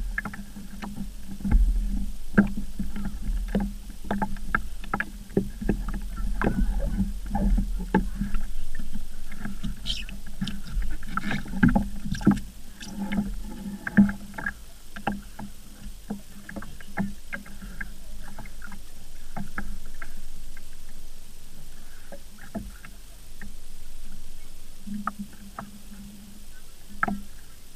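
Water lapping against the hull of a small sailing dinghy, with frequent sharp knocks and clatter from the boat and its gear being handled.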